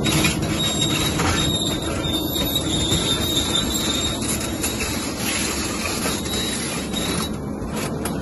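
Liebherr crawler excavator working hard as its single-shank rock ripper tooth tears through a rock layer, a steady grinding and crunching of rock under the engine's drone. A thin, high squeal runs through the first half and fades out about five seconds in.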